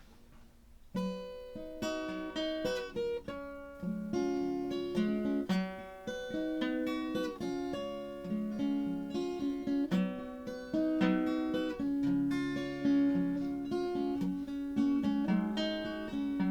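Acoustic guitar playing the instrumental introduction to a folk song, single notes picked one after another in a flowing pattern, starting about a second in.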